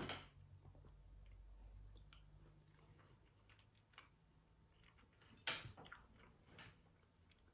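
A person quietly chewing cooked crab meat, with a few faint clicks and one sharper smack about five and a half seconds in.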